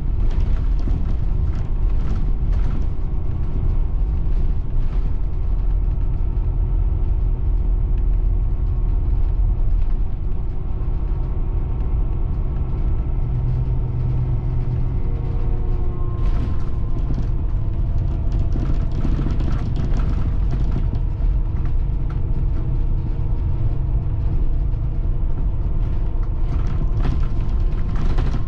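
Caetano Levante coach on the move, heard from inside the passenger saloon: a steady engine drone over heavy road rumble, with scattered knocks and rattles from the body. The drone's pitch shifts a little about halfway through.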